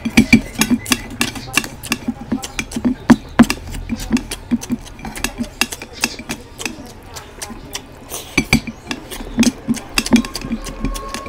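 Close-miked eating of oily mutton curry and rice: wet chewing and lip-smacking, an irregular run of sharp smacks and clicks several times a second.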